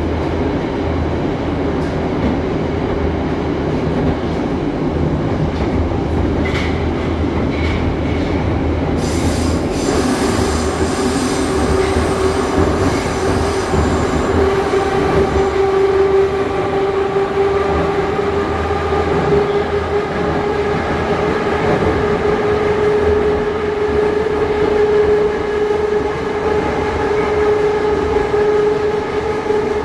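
Interior of an 81-717.5A metro car running at speed through a tunnel: steady wheel and running noise. About ten seconds in, a steady humming tone comes in and stays the loudest sound.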